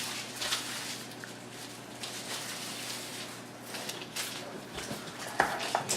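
Plastic wrap being peeled off and crinkled by hand, irregular crackling with a louder crackle near the end.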